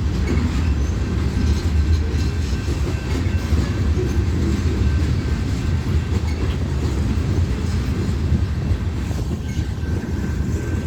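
Freight train's hopper cars rolling past: a steady, heavy rumble of steel wheels on the rails, with a faint thin ring held above it.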